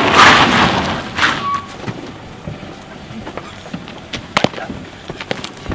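A loud rush of noise in the first second, then scattered footsteps and light knocks on asphalt.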